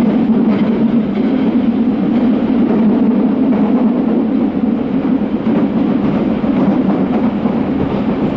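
Subway train running at speed through a tunnel, heard from inside the car: a steady, loud rumble of wheels on rail and tunnel noise.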